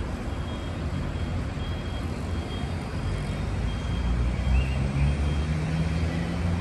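Low rumble of road traffic with a heavy vehicle's engine hum, which settles into a steady note near the end.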